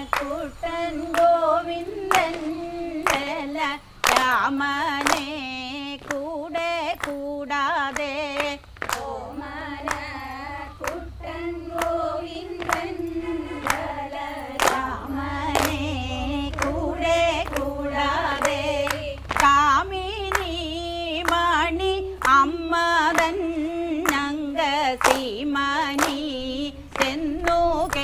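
Women's voices singing a Malayalam kaikottikali song, with sharp hand claps keeping the beat of the dance.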